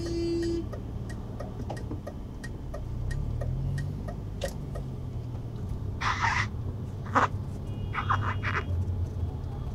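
Car driving in traffic, heard from inside the cabin: a steady engine and road hum, with the engine note rising briefly about three seconds in. A short steady tone sounds at the very start, and a few brief noisy bursts come in the second half.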